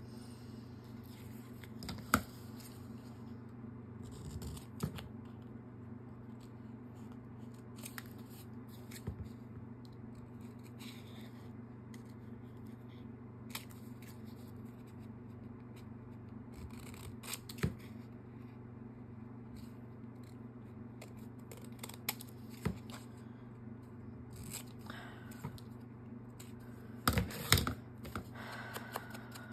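Paper and card being handled and cut with scissors: scattered snips, rustles and light taps, with a busier, louder cluster near the end. A steady low hum runs underneath.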